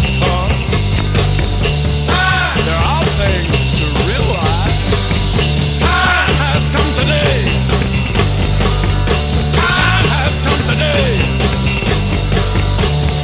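Instrumental rock music with a steady beat and a lead line that bends in pitch.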